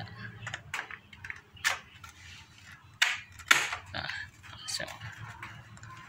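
Hard plastic clicks and knocks from a ceiling fan's plastic blade being handled and pushed into its snap-lock mount on the motor housing. The sharpest clicks come about three seconds in.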